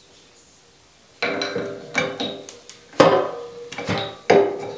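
A run of about eight sharp metal knocks at uneven intervals, each with a brief ring, starting about a second in: steel parts or tools being tapped and clanked against the steel frame of a forge press.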